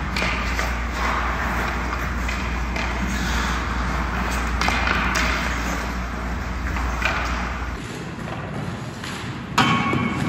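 Ice-skate blades scraping and carving on rink ice in repeated strokes, over a steady low hum that drops away about eight seconds in. Near the end comes one sharp clack with a brief ring.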